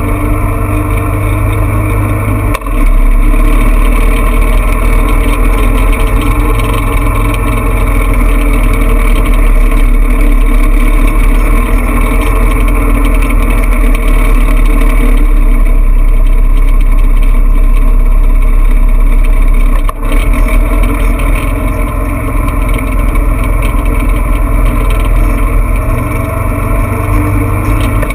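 Off-road vehicle's engine running steadily while driving on a dirt track, dipping briefly twice, once about two and a half seconds in and again about twenty seconds in.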